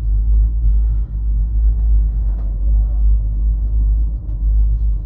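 Loud low rumble inside a Monarch Crest Scenic Tram gondola cabin as it rides up the cable, wavering in strength without a regular beat.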